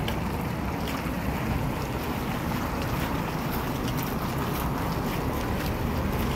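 Steady outdoor rumble of wind buffeting the microphone, with scattered faint small clicks over it.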